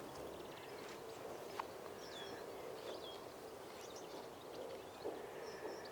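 Faint outdoor ambience: a steady low background with a few brief high chirps of small birds, and a single sharp click about one and a half seconds in.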